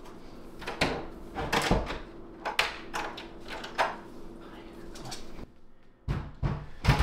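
A wooden interior door being handled and opened: a few sharp knocks and clicks spread over the first four seconds, over a steady low hum that stops about five and a half seconds in.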